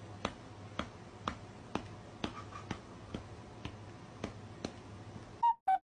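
Sharp, even clicks about two a second over a faint low hum, like a ticking clock. Near the end they give way to short high-pitched beeps, two and then two more.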